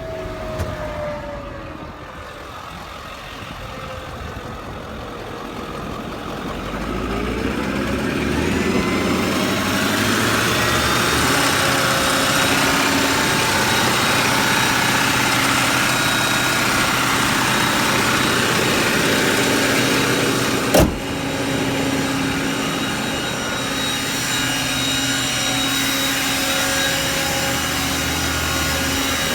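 Truck engine running with its PTO-driven Vanair underdeck air compressor engaged. About seven seconds in, the sound rises and grows louder over a few seconds as the compressor comes up to speed, then runs steadily, with one sharp click about 21 seconds in.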